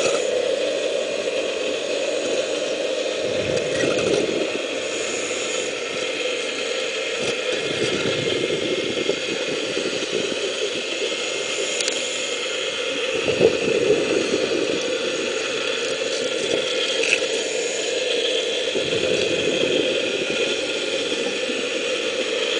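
Underwater sound of a 4-inch venturi dredge's suction nozzle drawing in black iron sand (magnetite): a steady rushing, gritty noise with small crackles. A deeper rumble swells up about every five seconds.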